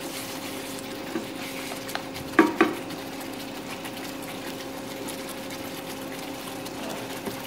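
Thick gravy simmering and bubbling in a non-stick pan on low heat while it is stirred, with two quick knocks against the pan about two and a half seconds in. A steady low hum runs underneath.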